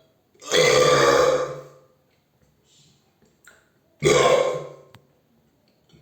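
A person belching twice: a long, drawn-out burp lasting about a second and a half, then a shorter burp about four seconds in that trails off.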